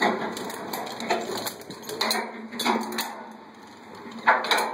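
A series of irregular knocks and clatters, the loudest a little past four seconds in.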